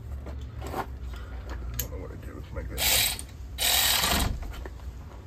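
Ratchet wrench clicking in two short bursts about three and four seconds in, with a few lighter metal tool clicks before.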